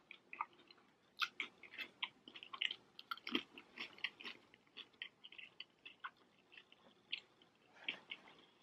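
Close-miked chewing of crispy fried chicken wontons: many short, faint, irregular crunches and mouth clicks.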